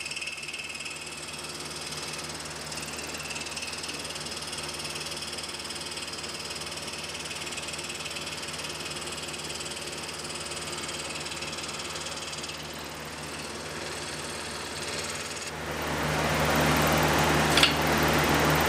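Scroll saw running, its blade cutting a small wooden block, a steady mechanical buzz. About three seconds before the end it gets clearly louder and fuller, with one sharp click shortly after.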